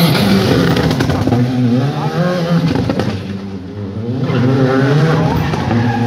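Rally car engine revving hard, its pitch climbing and dropping again and again as it accelerates across the stage. It fades briefly about three and a half seconds in, then revs up once more.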